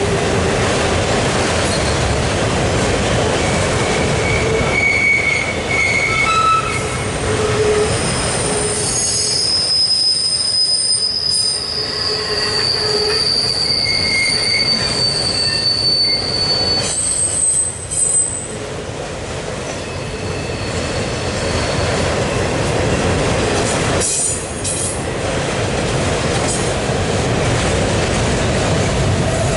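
Autorack freight cars rolling past at close range: a steady rumble and clatter of steel wheels on the rails, with high-pitched wheel squeal that comes and goes, the longest squeal held for several seconds in the middle.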